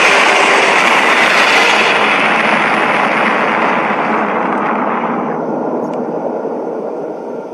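A kaiju-film sound effect: a loud, sustained rushing noise with no clear pitch. It grows duller and fades steadily over several seconds.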